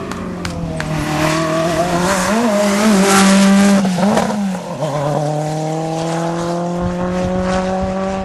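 Rally car engine at full effort. Its note wavers up and down with a rush of tyre noise, loudest about three seconds in, drops sharply at a lift or gear change about four and a half seconds in, then climbs steadily as the car accelerates.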